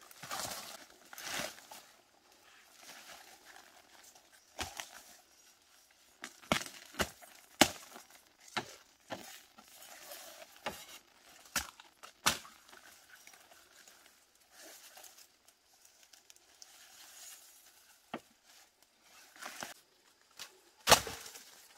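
Bamboo shoots being chopped and snapped off with a machete: irregular sharp knocks and cracks, the loudest near the end, amid rustling of dry bamboo leaves underfoot.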